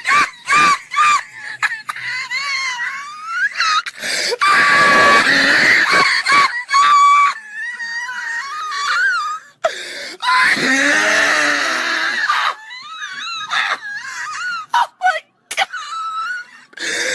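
A man laughing uncontrollably: high-pitched, squealing and wheezing laughter in repeated bursts, with short breaks between them.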